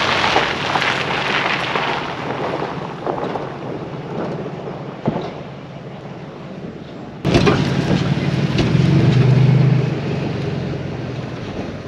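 Pickup truck driving with rumbling road noise from inside the cab. About seven seconds in, a low engine hum suddenly gets louder, then eases off near the end.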